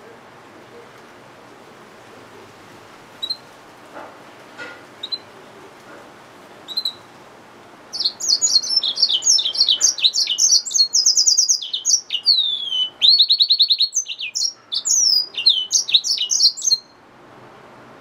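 Yellow-fronted canary mule, a hybrid finch, singing: a few single high chirps, then about nine seconds of fast warbling song made of rapid trills, quickly repeated notes and downward-sweeping whistles, stopping shortly before the end.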